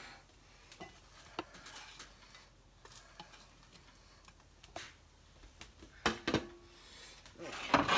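Silicone spatula scraping and tapping loose cereal crumbs around a nonstick skillet in scattered light scrapes and clicks. Two sharp knocks come about six seconds in, then a louder, longer scraping clatter near the end.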